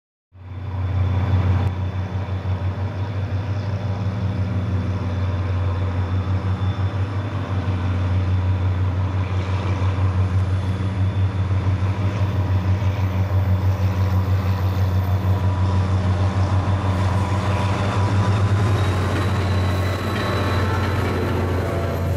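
New Jersey Transit diesel commuter train approaching, with a loud steady low rumble. Its coaches are running past close by near the end.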